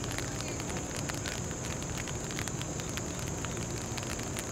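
Open-air ballfield ambience between pitches: a steady low hiss with a thin constant high-pitched tone and faint scattered crackles, and no distinct event.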